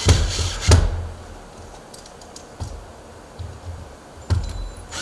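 Light metal clicks and knocks of storm door hardware being handled as the wind chain and its pin are fitted: two sharp clicks in the first second, a few fainter ones later, over low handling rumble.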